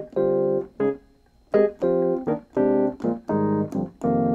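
Piano chords played on a Kurzweil KM88 88-key hammer-action MIDI controller driving a piano app on an iPad: a string of short and held chords, with a brief pause about a second in.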